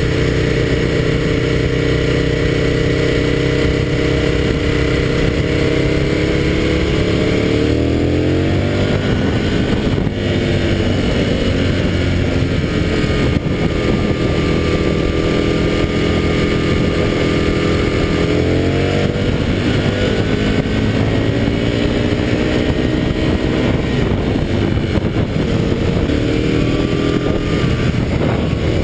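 Motorcycle engine heard from on board while riding, mostly at a steady cruise with loud wind rush. The engine pitch rises twice under acceleration, about a quarter of the way in and again past the middle.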